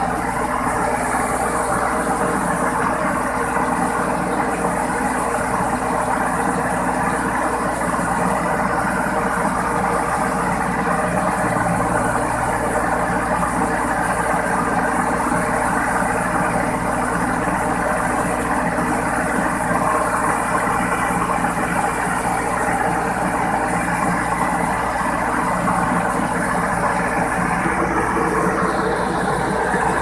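World Star WS7.0 Plus combine harvester's diesel engine running steadily at a constant speed.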